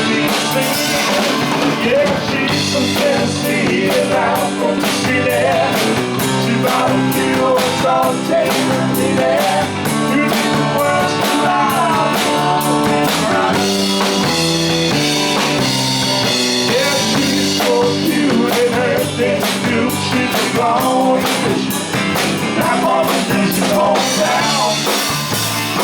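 Live rock-and-roll band playing a mostly instrumental passage, with electric guitar lines over a steady drum kit.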